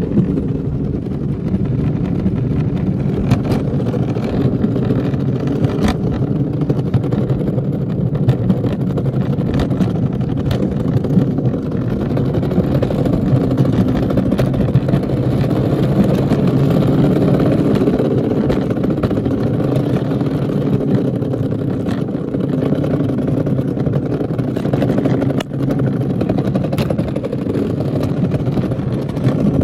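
Luge cart's wheels rolling down the concrete track, a steady loud rumble with a few faint clicks.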